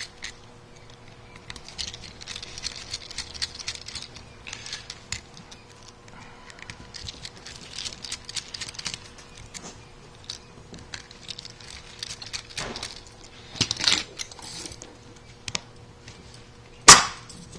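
Hands working a metal airsoft version 3 gearbox shell apart: scattered small metallic clicks, taps and scrapes of parts being handled, with one sharp click about a second before the end.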